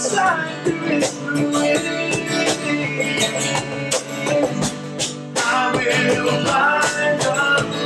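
Acoustic guitar strumming with a cajon slapped in a steady beat, under two men singing a slow worship song.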